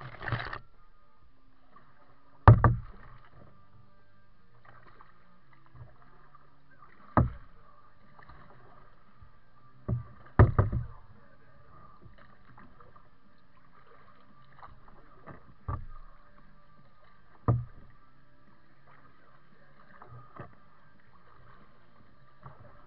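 A kayak being paddled: sharp knocks at irregular intervals of a few seconds, about seven in all, the loudest about two and a half seconds in and around ten seconds in, over a faint steady background.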